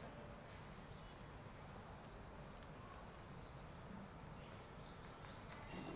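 Near silence: faint outdoor background noise.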